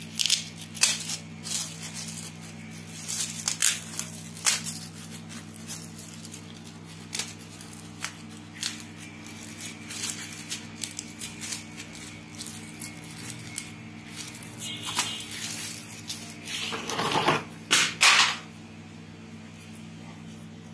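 Light plastic clicks and taps of a laptop keyboard being handled and fitted into a Compaq C700 laptop, with a louder run of handling and scraping noise near the end. A steady low hum runs underneath.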